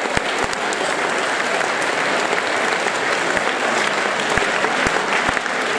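A large audience in a packed hall applauding steadily: a dense, even clatter of many hands clapping.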